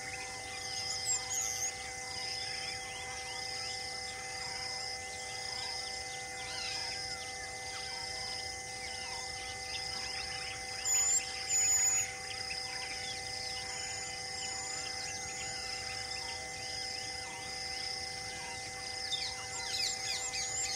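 Forest ambience with many birds chirping and a high chirp that repeats about once a second. Two short, loud, high whistled bird calls come about halfway through. A steady hum of level tones runs underneath.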